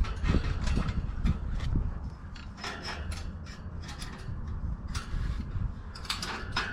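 Wire being worked around a bike basket and rack by hand: irregular small metallic clicks, scrapes and rattles as it is fed through and twisted tight to fasten a Wald 535 rear basket.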